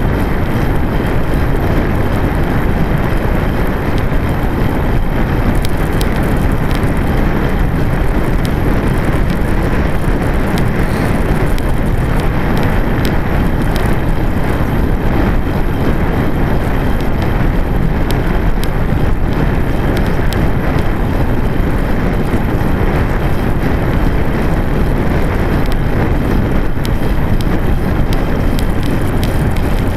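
Steady wind rush on the microphone of a camera riding on a moving road bike, mixed with the bike's tyres rolling on tarmac.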